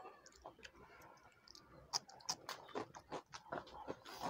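Faint eating sounds: chewing with short, wet mouth clicks and smacks, coming more often after about two seconds.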